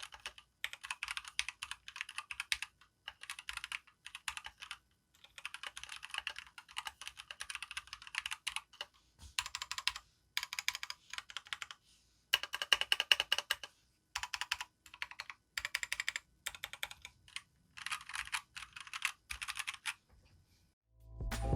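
Typing on a Keychron K2 V2 aluminium-framed mechanical keyboard with Keychron red linear switches: fast runs of key clacks in bursts with short pauses, a sound the reviewer finds somewhat hollow. Music comes in loudly just before the end.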